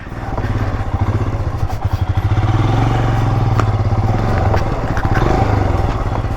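Motorcycle engine running steadily with a fast pulsing beat, with a few light knocks over it.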